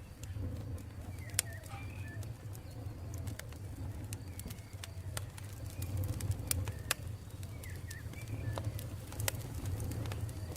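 Campfire burning with a steady low rumble and frequent irregular crackles and pops, while birds chirp in short calls in the background.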